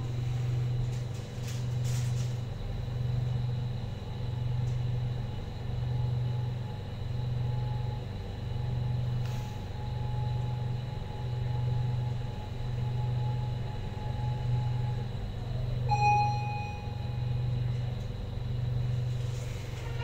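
Passenger elevator car travelling up: a low rumble throbbing about once a second under a faint steady whine. The whine falls in pitch as the car slows to a stop about fifteen seconds in, and a short chime sounds on arrival.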